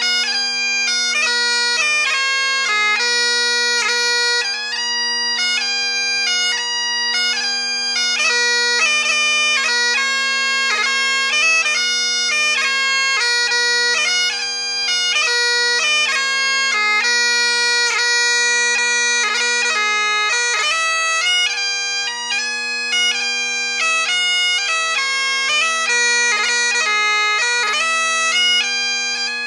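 Great Highland bagpipe playing a 6/8 tune: the chanter's melody, with quick grace notes between its notes, over the steady hum of the drones.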